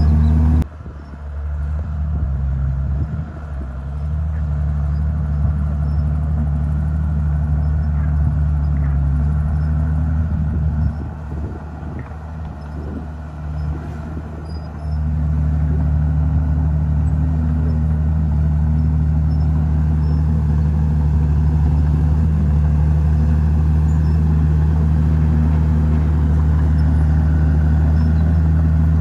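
Diesel engine of a Komatsu D51PX crawler bulldozer running under load. The engine eases off for a few seconds around the middle, then picks up again.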